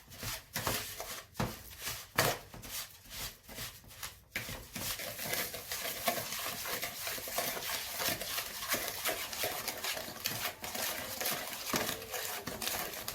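Wooden mwiko stirring and scraping sugar and margarine in a bowl, creaming them toward a fluffy mixture. Separate strokes for the first four seconds or so, then quicker, continuous scraping.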